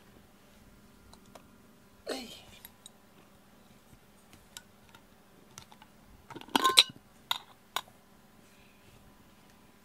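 Metal twist-off lid of a glass jar being worked open: a loud cluster of clicks and clinks with a brief ring about six and a half seconds in, then two single clicks. A short falling squeak about two seconds in.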